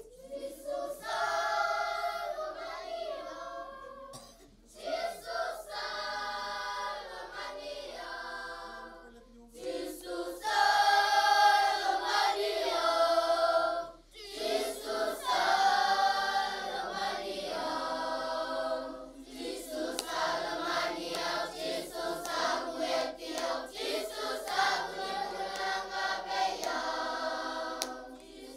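Schoolchildren singing together as a choir, in phrases broken by short pauses.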